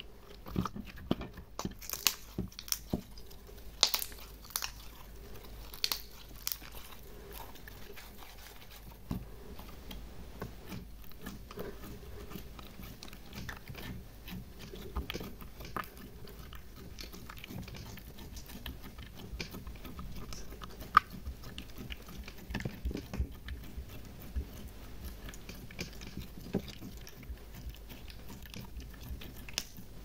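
Hands kneading and squishing red glitter slime: a run of wet clicks, squelches and small air pops, sharpest in the first several seconds and denser and softer after that, with one loud pop about 21 seconds in.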